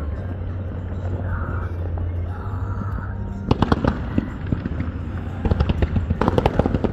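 Fireworks display: a low steady rumble at first, then from about halfway rapid volleys of sharp bangs and crackles, with a denser run near the end.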